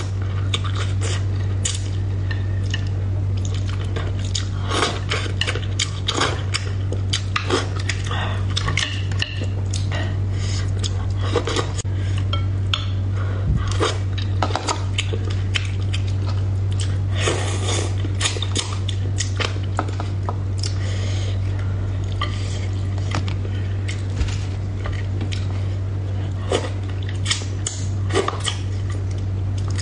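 Eating sounds: wooden chopsticks clicking and scraping irregularly against a ceramic bowl while picking through braised fish in sauce, with some wet squishing. A steady low hum runs underneath.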